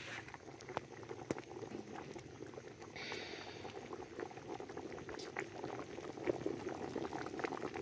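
A pot of thick vegetable stew boiling over a wood fire, a dense, irregular run of small bubbling pops.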